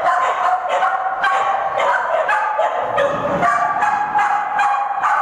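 A pinscher barking rapidly and repeatedly, about three short barks a second.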